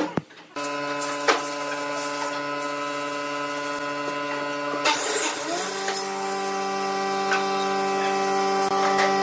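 A steady pitched hum with many overtones starts suddenly about half a second in and glides up to a higher pitch a little past halfway, with a few faint knocks over it.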